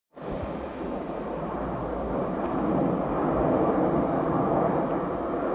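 A formation of four BAE Hawk jet trainers flying past, the rushing noise of their turbofan engines growing steadily louder.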